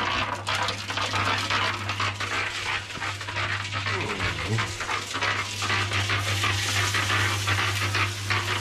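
Electric concrete mixer running: a steady motor hum under the continuous clatter of concrete and gravel churning in the turning drum. A brief wavering whine rises over it about four seconds in.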